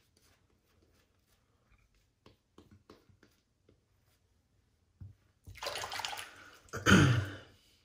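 Faint brush strokes on a lathered face, then water running and splashing at a bathroom sink from about five and a half seconds in, loudest near the end.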